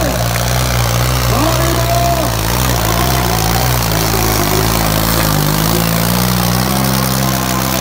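John Deere 5310 tractor's three-cylinder diesel running hard under load through a tall straight exhaust stack, dragging a disc harrow in a pulling contest. Its pitch wavers slightly but never drops away.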